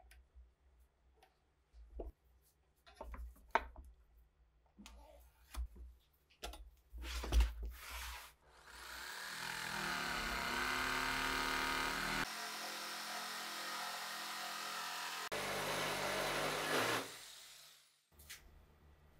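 Electric jigsaw cutting through a wooden board, running steadily for about nine seconds from about halfway in. Before it, a scatter of light knocks and clicks from clamps and wood being handled.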